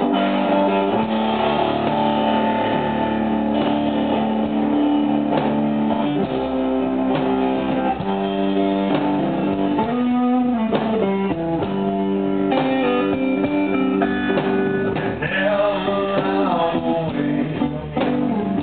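Live blues-rock band with a lead electric guitar on a Stratocaster-style instrument, some notes bent in pitch; a voice sings toward the end.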